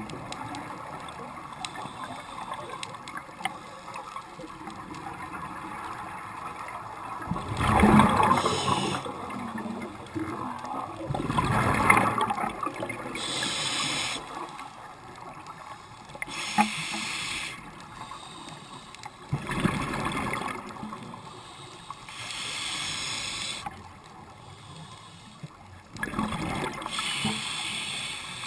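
Scuba diver breathing through a regulator underwater: a hiss on each inhalation and a loud rush of exhaled bubbles every several seconds, four bubble bursts in all, the loudest about 8 and 12 seconds in.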